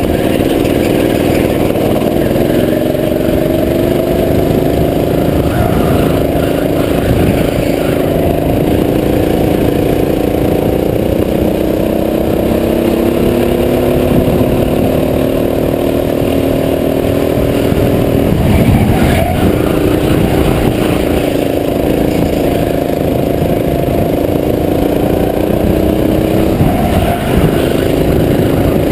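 Go-kart engine heard from the driver's seat, running hard, its pitch rising and falling as the throttle opens and eases through the corners.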